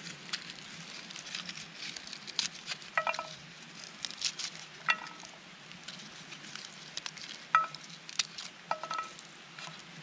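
Garlic cloves being broken apart and peeled by hand over a stainless steel pan: the papery skins crackle and rustle in many small clicks. Four times a clove drops into the pan with a short metallic clink that rings briefly.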